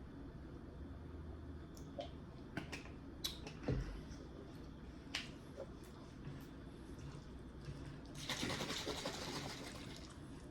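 Close-miked eating: chewing food, with scattered light clicks of cutlery and a soft thump. A denser scratchy stretch of chewing comes near the end.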